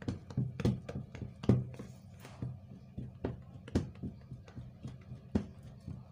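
Spoon knocking and scraping against the side of a yellow plastic bowl while stirring a thick, foamy liquid soap mixture: irregular clicks, roughly two a second, over a steady low hum.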